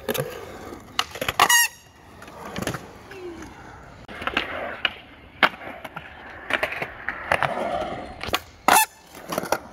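Skateboards rolling on concrete, with a series of sharp wooden clacks of boards striking the ground. The loudest clack comes near the end.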